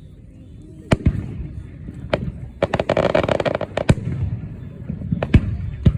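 Aerial fireworks bursting. There are single sharp bangs about a second in and at two seconds, then a dense run of crackling reports around three seconds, then further bangs near the end.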